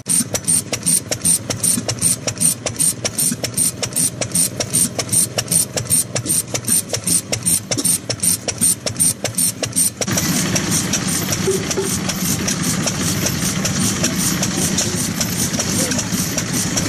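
Kubota 5S vintage single-cylinder stationary engine running with an even beat of about four to five strokes a second. About ten seconds in, the sound turns abruptly into a denser, steadier engine noise.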